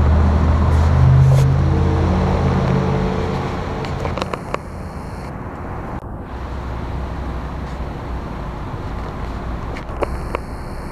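Car engine and road rumble heard from inside the car. A loud, low engine hum for the first four seconds or so fades into a quieter, steady rumble, with a few light clicks.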